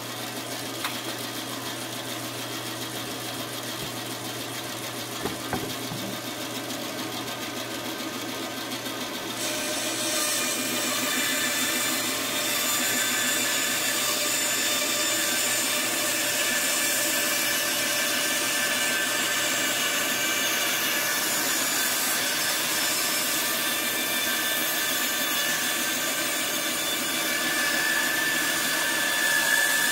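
Vertical band saw running. About ten seconds in its blade starts cutting through plywood, and the sound grows louder and brighter and stays that way as a steady cut.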